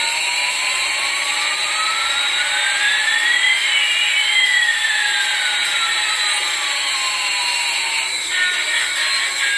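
Electronic jet-engine sound effect from a battery-operated toy Airbus A380: a hissing whoosh with one tone gliding up and another gliding down, crossing about halfway through.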